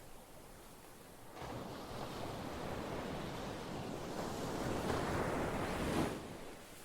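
Ocean surf. After a lull, a wave rolls in about a second and a half in and builds into a loud wash of surf, then drops away suddenly near the end.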